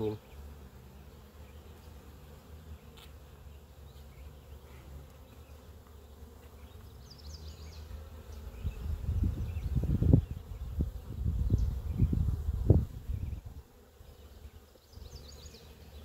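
Honeybees buzzing around an open hive as a frame is held up for inspection, a steady low hum. About halfway through, louder irregular low rumbling comes in for a few seconds.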